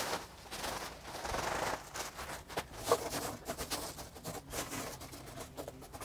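Coarse pumice gravel pouring from a sack into a fabric-lined wooden box and being spread by hand: a rattling crunch of many small clicks.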